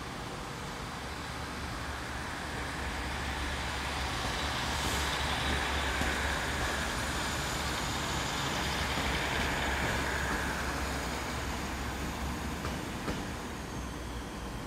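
Diesel multiple unit departing, its diesel engine running under power with a steady low hum; the sound swells over several seconds and then fades as the train draws away. One brief click near the end.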